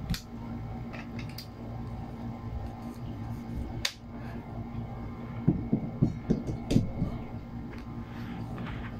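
Handling noise from a hand picking up a charging cable on a bed: a few sharp clicks, then a cluster of knocks and rustles a little past halfway, over a steady low hum.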